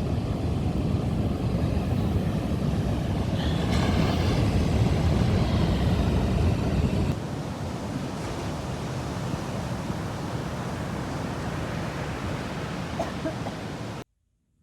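Wind buffeting the microphone over the wash of ocean surf at a beach. The rumble drops a step about halfway through and cuts off abruptly near the end.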